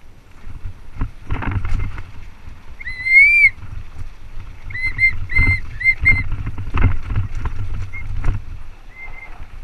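Mountain bike rolling over a rocky dirt trail: a steady rumble of tyres and wind with knocks and rattles from the bumps, cut by high brake squeals. There is one longer squeal about three seconds in, then a quick run of five short squeals around five to six seconds, and a couple of faint ones near the end.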